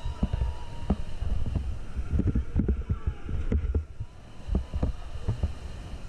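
Rushing river water around an inflatable whitewater raft, with a heavy low rumble and many short splashes and slaps of water and paddles against the boat.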